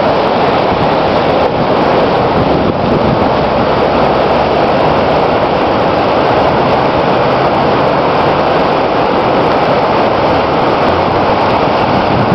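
Floodwater of a swollen river rushing over rapids: a loud, steady rush of fast water.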